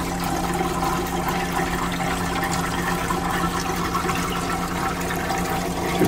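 Refrigerant flowing through the evaporator of a 1935 General Electric Monitor Top refrigerator running on propane: a steady rushing hiss over the steady low hum of the running unit.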